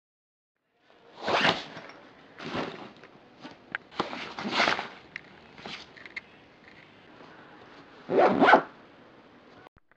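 Backpack zippers pulled in a series of quick strokes, starting about a second in, with the bag's fabric rustling between pulls.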